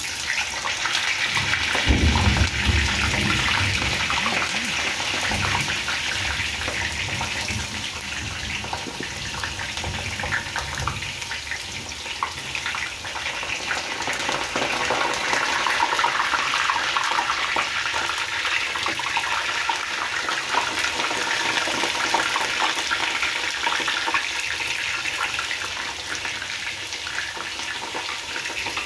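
Stuffed potato balls deep-frying in overheated oil: a loud, steady crackling sizzle. A low rumble sits under it during the first ten seconds or so.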